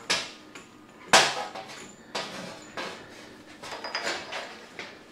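A series of sharp metallic knocks and clanks in a workshop, about six in all and irregularly spaced. The loudest comes about a second in; the others are smaller knocks of tools or fittings against metal.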